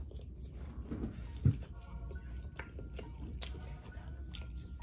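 A man chewing and biting into fried chicken wings close to the microphone, with small crunches and wet mouth sounds. There is a single low thump about one and a half seconds in.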